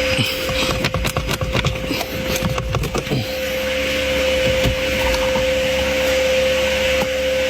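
A steady machine hum with a held mid-pitched whine, with scattered clicks and knocks, thickest in the first half.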